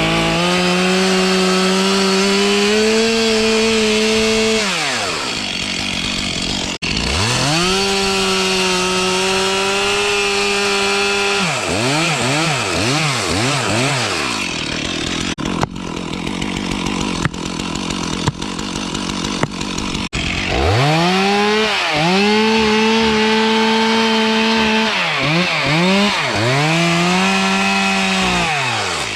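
Two-stroke chainsaw at high revs in long steady runs, with quick blips of the throttle in between. It drops to idle for several seconds in the middle, when a few sharp knocks are heard, and runs down again near the end.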